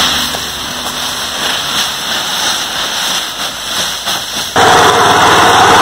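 Dry leaves crackling and rustling as a plastic sack of leaves is shaken out onto a heap. About four and a half seconds in, a much louder, steady rushing hiss suddenly takes over.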